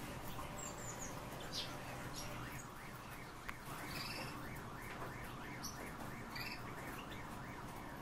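Male Eurasian bullfinch calling: scattered short high chirps, with a quick run of soft squeaky notes around the middle.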